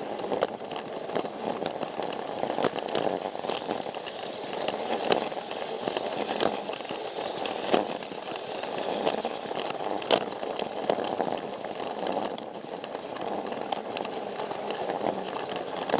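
Plarail battery-powered plastic toy train running along plastic track: a steady motor-and-gear rattle, with sharp clicks about once a second as the wheels pass over the track joints, the loudest about ten seconds in.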